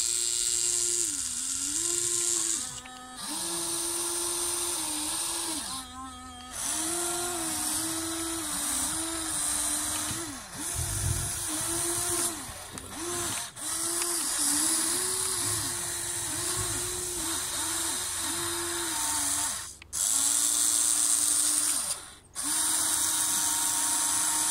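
Electric motors of a Huina 1593 RC excavator whining as the boom, arm and bucket move, in a run of short starts and stops with the pitch dipping and rising with each movement.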